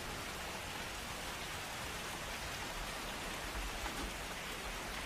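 Steady rain falling, an even hiss with no other sound standing out.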